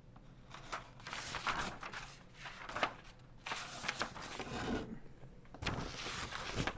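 Paper pages of a model kit's instruction manual being turned and handled: several bursts of rustling over a few seconds.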